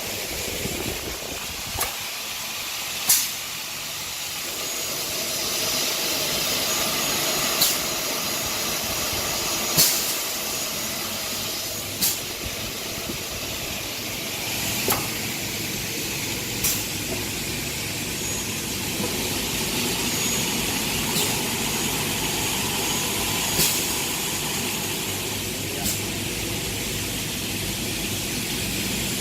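Double-head aluminium cutting machine running through its operating cycle: a steady machine hum and hiss with sharp clicks every two to three seconds.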